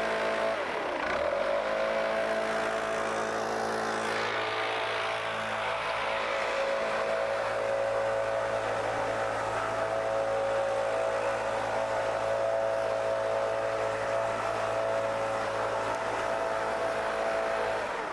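STIHL BR 700 backpack leaf blower's two-stroke engine running at a steady high speed. About a second in, the revs drop briefly and climb straight back up.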